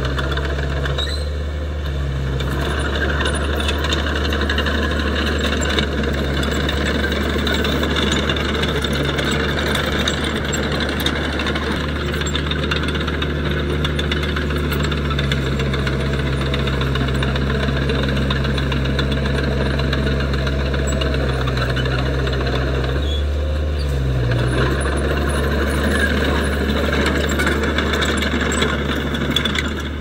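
Small crawler bulldozer's diesel engine running steadily as the dozer pushes and levels soil. Near the end the engine note briefly dips and comes back up.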